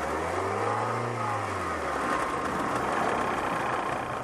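Car engine idling. Its speed rises briefly and settles back within the first two seconds, then it holds a steady idle.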